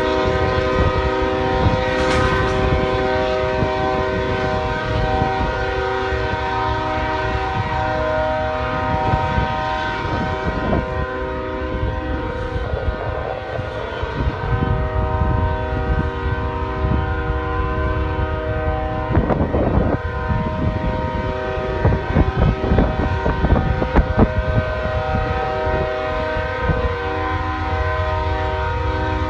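Train air horn blowing continuously, several steady tones sounding together as one chord, over a low rumble. The horn dips for a few seconds around the middle and then holds again.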